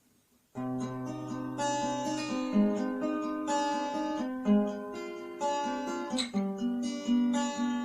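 Acoustic guitar playing a steady picked accompaniment of separate notes, starting about half a second in after near silence.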